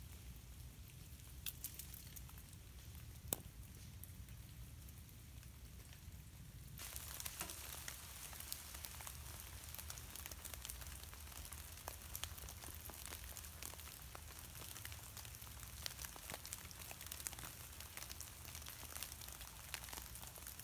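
Freezing rain ticking and pattering on ice-glazed branches: a faint, dense crackle with a steady low rumble underneath. There are two sharp ticks in the first few seconds. About seven seconds in, the crackle suddenly becomes louder and denser.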